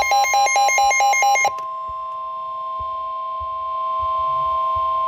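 Emergency Alert System broadcast: the tail of the digital SAME header, a fast repeating electronic screech, cuts off about one and a half seconds in and is replaced by a steady, continuous alert tone.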